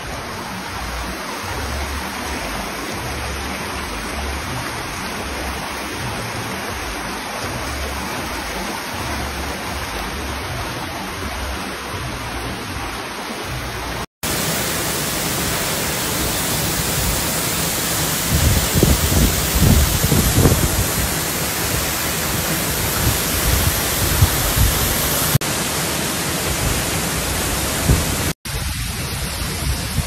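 Steady, loud rush of water: a rocky stream running in white water, then a waterfall pouring into its pool. The sound breaks off for an instant twice, and there are a few low bumps a little past the middle.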